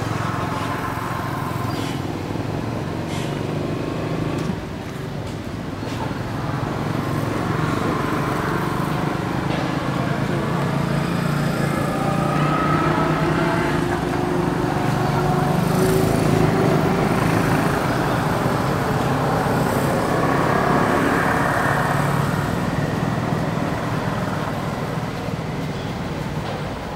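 Steady background rumble of road traffic with faint voices.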